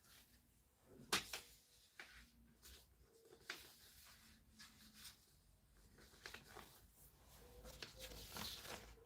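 Near silence, with a few faint rustles and soft taps of paper or card being handled, the clearest about a second in and near the end.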